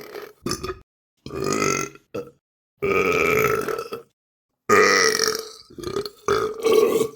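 A person burping over and over: about six separate burps, some short and some drawn out for a second or more, with brief silences between them.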